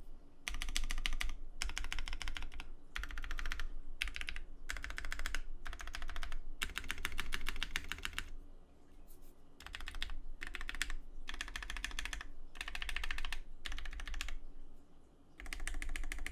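Typing on a mechanical keyboard with Cherry MX Black clear-top linear switches mounted on a POM half plate: fast runs of clacking keystrokes in bursts of about a second, broken by short pauses.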